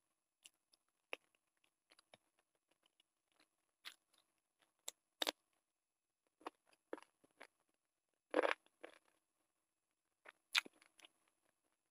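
Eating sounds: sparse wet clicks, smacks and crackles of chewing and of fingers pulling apart a sauce-coated piece of chicken, with one longer, louder crackling burst a little past eight seconds in.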